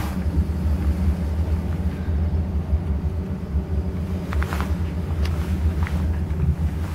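Diesel locomotive engine running with a steady low rumble, heard from inside the locomotive's cab. A few light knocks and rattles come about two-thirds of the way through.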